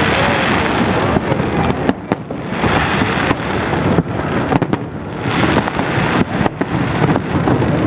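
A fireworks display going off continuously, a dense barrage of bangs and rapid crackling. Surges of crackle come about every two and a half seconds, three times.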